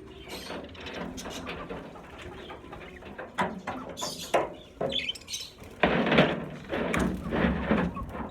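A flock of pet budgerigars chirping and chattering in their cage, with many short noisy bursts that grow louder and more frequent in the last few seconds.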